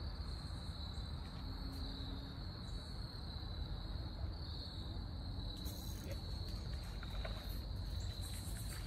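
Insects trilling steadily in one continuous high-pitched note, over a low rumble.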